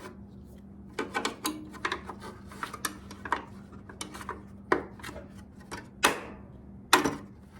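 Small magnets and parts being handled and set back in place on a Wen thickness planer: a run of light clicks and knocks, with two sharper clacks near the end.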